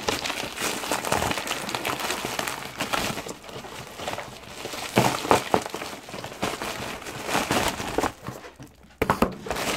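Parcel packaging being handled and opened: continuous rustling and crinkling with scattered sharp clicks and knocks. It is loudest about five seconds in and briefly drops away near the end.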